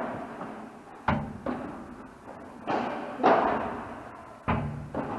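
Padel rally: the ball struck by rackets and bouncing, about five sharp pops at irregular spacing, each one echoing in a large hall.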